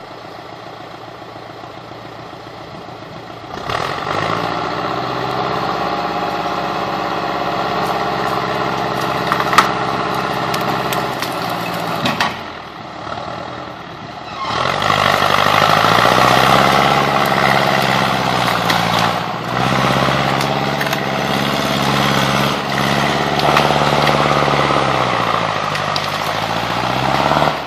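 John Deere 440A log skidder's diesel engine running under load as it drags out a log. It starts at a lower speed, revs up about four seconds in, eases off briefly around twelve seconds, then revs up again and runs harder, with its pitch dipping and rising near the end. A single sharp clank sounds about nine and a half seconds in.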